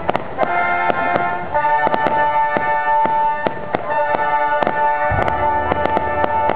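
Orchestra playing held notes, overlaid by the repeated sharp pops and crackles of aerial fireworks bursting overhead.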